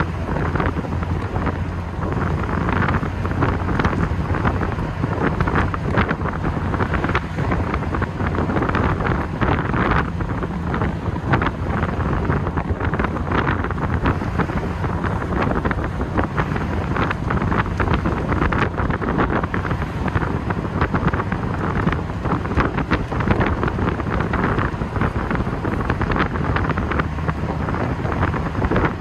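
Wind buffeting the microphone in an open-topped TVR on the move, over the low, steady burble of its V8 engine at cruising speed.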